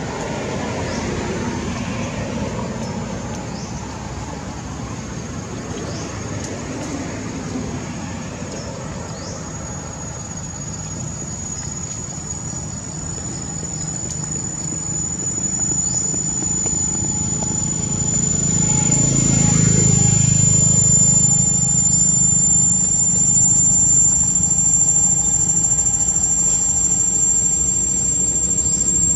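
A motor vehicle's engine rumbles past, swelling to its loudest about two-thirds of the way through, over a steady thin high whine. A few brief, high, falling chirps come in the first half.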